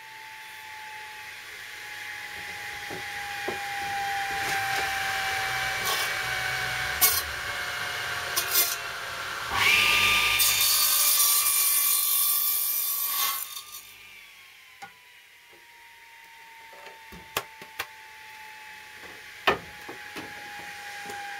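Compound mitre saw making an angled crosscut through a 5x1 planed timber brace. The saw runs for several seconds, then its blade cuts through the wood loudly for about four seconds in the middle and stops, followed by a few sharp wooden knocks as the board is handled.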